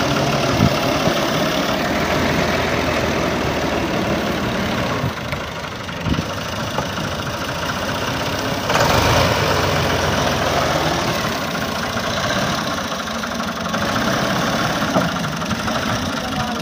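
Ghazi tractor's diesel engine running steadily while it drives a front-mounted chain-type reaper cutting standing wheat, briefly louder about nine seconds in.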